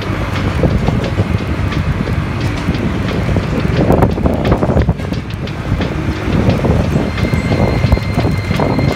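Wind buffeting the microphone on a moving motorcycle, over the bike's engine and tyre noise.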